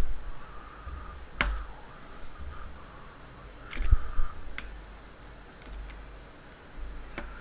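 A handful of sharp, irregularly spaced clicks and taps with low dull bumps: small tools and parts being handled while a Samsung Galaxy S5 is worked on.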